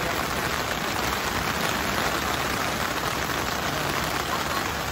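Heavy rain pattering steadily on a clear plastic umbrella overhead, a dense, even hiss of drops.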